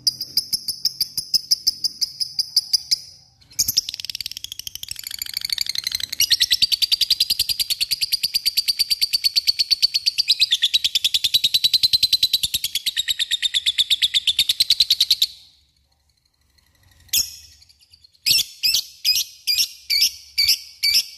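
Lovebird singing its 'ngekek': a long, very fast chattering trill that wavers slightly in pitch and runs unbroken for about twelve seconds, preceded by a quick run of repeated notes. After a short pause it gives a series of separate sharp chirps, about three a second.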